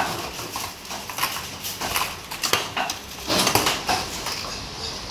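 Irregular clinks and knocks of stainless steel bowls and serving utensils being handled, with a louder clatter about three and a half seconds in.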